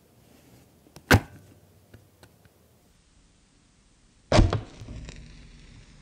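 A wooden kitchen match struck twice on a matchbox's striker strip: a short scrape about a second in that does not light it, then a louder scrape a little after four seconds that ignites it, followed by a brief fizz and a low steady hiss as the head flares.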